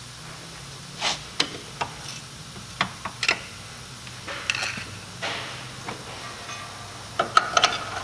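Scattered metallic clinks and knocks of hand tools on steel suspension parts and the concrete floor, single taps spread out with a quick cluster near the end, as the strut is worked into line with the steering knuckle. A faint steady low hum runs underneath.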